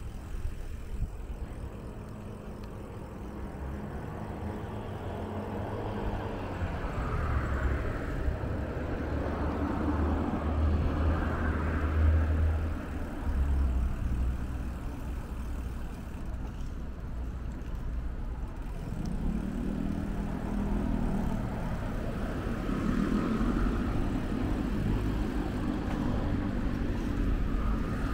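Road traffic on the street alongside: cars going by with a low rumble and tyre hiss. The sound swells as vehicles pass, loudest about a third of the way in and again in the last third.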